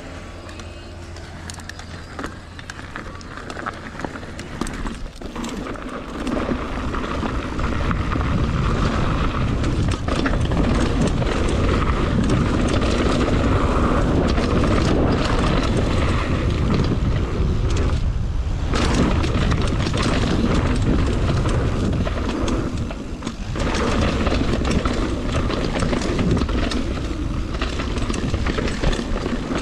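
Mountain bike descending a dirt trail: wind rushing over the action camera's microphone, tyres rolling on dirt, and the bike rattling and knocking over bumps. It starts quieter and grows loud about six seconds in as the bike picks up speed.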